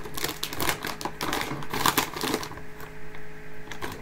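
Plastic snack bag crinkling and crackling as it is handled and pulled open. The crackles are densest in the first two and a half seconds, then thin out over a faint steady hum.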